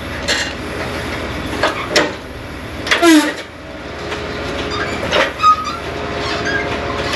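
Lorry-mounted hydraulic crane running steadily as its steel brick grab sets down a pack of concrete blocks and opens. A falling metallic squeal comes about three seconds in, and there are sharp clunks and small squeaks from the grab's arms and pivots.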